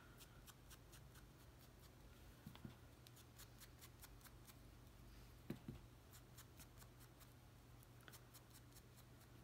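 Near silence with faint small ticks and a couple of soft taps from paper and crafting tools being handled.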